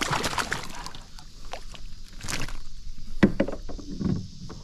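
Water splashing and sloshing against a kayak for about the first second, followed by several sharp knocks and clicks on the kayak.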